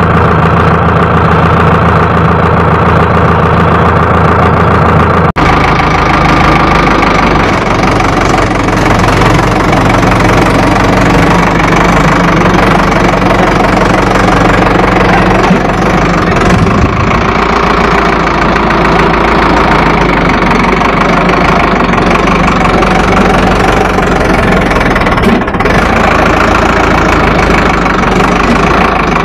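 Preet 6049 tractor's diesel engine running steadily close by, with an abrupt change in its sound about five seconds in.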